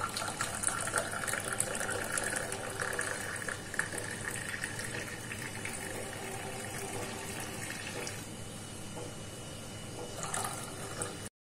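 Frothy hot milk poured in a thin stream from a steel vessel into a steel tumbler of filter-coffee decoction, making a steady splashing fill. The pour eases after about eight seconds, and a brief louder splash comes near the end before the sound cuts off suddenly.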